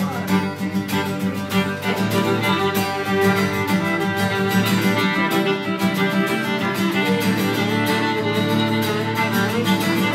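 Unamplified fiddle and acoustic guitars playing the instrumental opening of a song. The guitars strum a steady rhythm under the fiddle's melody.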